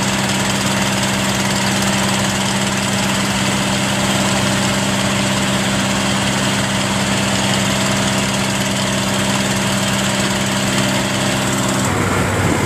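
A boat engine running steadily at an even pitch. Near the end it cuts off suddenly and a rushing noise takes over.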